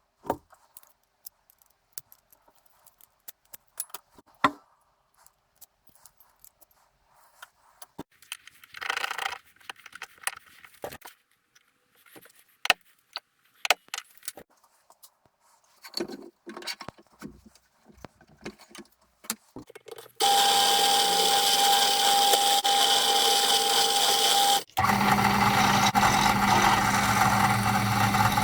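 Small metal parts and hand tools clink and tap at scattered moments. About two-thirds of the way in, an electric power tool starts running steadily with a high whine. It breaks off for a moment, then runs on with a lower hum under the whine.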